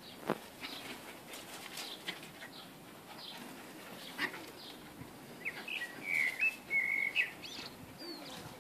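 A garden bird chirping, with a short phrase of clear whistled notes a little past the middle.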